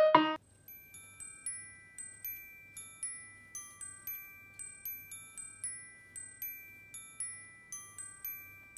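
Soft background music of light, high chiming notes struck two or three times a second, with a few held tones under them. A louder intro jingle cuts off just at the start.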